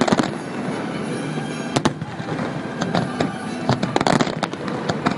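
Fireworks going off: a dense volley of sharp cracks at the start, then a steady crackling hiss with scattered single bangs, with music playing alongside.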